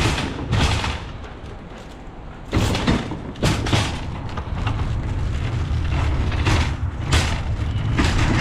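Shopping cart being pushed, its wheels and basket rattling and rumbling, with sharp knocks now and then. The low rumble turns steady and louder about two and a half seconds in.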